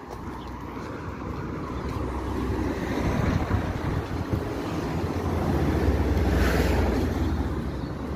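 Outdoor street noise with wind on the microphone: a low rumble that swells over several seconds, is loudest about six seconds in, then eases off near the end.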